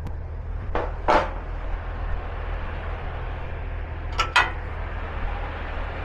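Two pairs of sharp metal clanks, about a second in and again just past four seconds in: steel locking pins being set in the car-carrier trailer's truck-package deck. Under them runs the steady low hum of an idling truck engine.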